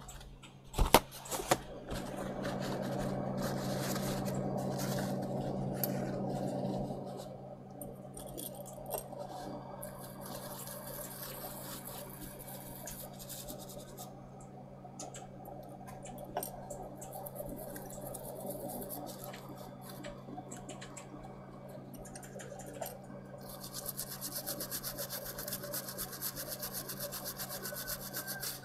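Scratchy rubbing and scraping as dirty residue is scrubbed off a part of a Standard C150 handheld radio, with a few sharp clicks about a second in and a steady low hum underneath.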